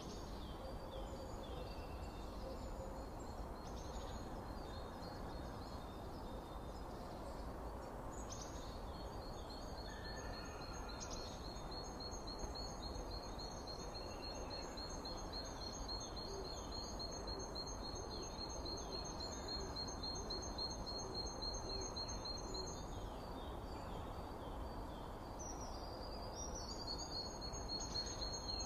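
Forest ambience: a steady background hiss with scattered short bird chirps, and a long, fast-pulsing high trill that starts about a third of the way in, stops after about fifteen seconds, and starts again near the end.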